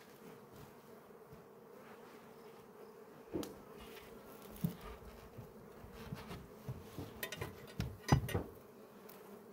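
Honeybees buzzing around an open hive, a faint steady hum. A few sharp knocks and clicks come through it, the loudest cluster about eight seconds in.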